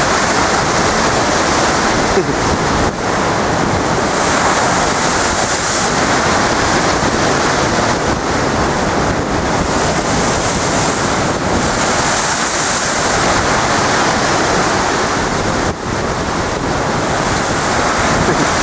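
Storm waves breaking against a sea wall: a continuous loud rush of surf that swells every few seconds, with wind buffeting the microphone.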